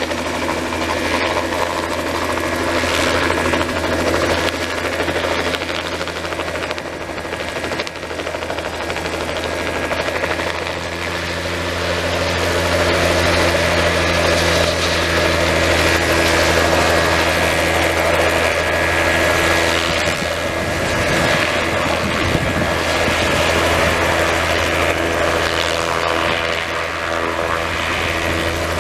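Crop-spraying helicopter with a two-blade main rotor running close by, loud and steady, as it settles from a low hover onto the flatbed of its nurse truck and keeps running there with the rotor turning.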